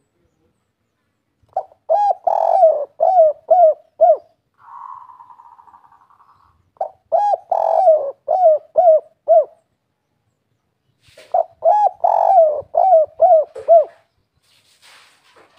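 Spotted dove (tekukur) cooing the "kuk 3" song three times, each phrase a quick run of arched coos with a longer note near the start and three short "kuk" notes at the end. A soft buzzing that fades away comes between the first two phrases.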